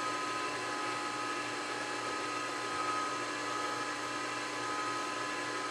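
Vertical milling machine running with its spindle turning but not cutting: a steady motor hum with a few fixed whining tones.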